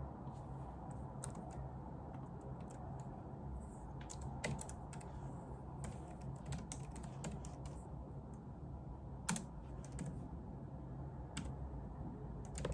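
Typing on a computer keyboard: irregular key clicks in quick runs, over a steady low background hum.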